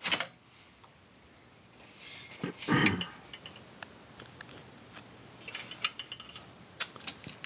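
Sheet-metal hard-drive cage being handled: a dull knock about three seconds in, then scattered light metal clicks and rattles.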